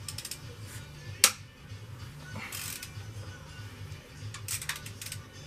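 Ratchet wrench clicking in short bursts as bolts on the cylinder head of a Jeep Liberty CRD diesel engine are worked loose, with one sharp metal clink about a second in. Background music plays underneath.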